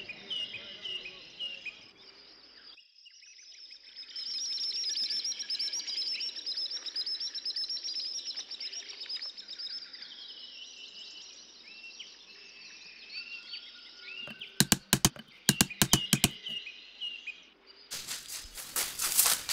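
Birdsong ambience: small birds chirping over and over, with a dense high trilling chorus through the middle. Near the end come clusters of sharp clicks and a crackling, rustling stretch.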